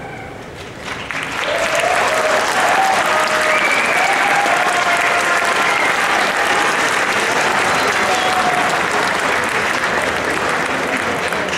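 Audience applauding and cheering as a demo ends, swelling about a second in and holding loud, with shouts and whoops from the crowd.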